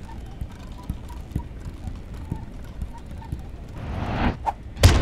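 Cartoon sound effects: light, irregular tapping with faint soft tones, then a rising whoosh about four seconds in as the view swings, and a sharp loud hit just before the end.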